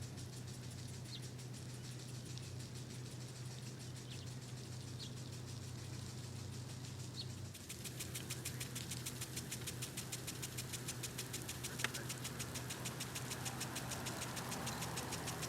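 A motor running steadily with a low hum, and a few faint bird chirps in the first half. About halfway through, a rapid, even ticking joins in and the sound grows louder.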